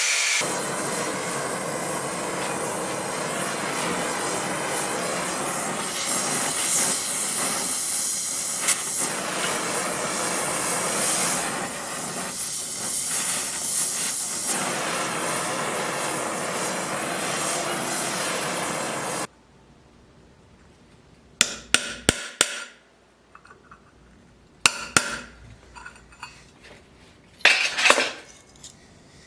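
A power tool running steadily on wood, stopping suddenly about two-thirds of the way through. Then a handful of short, sharp taps and knocks.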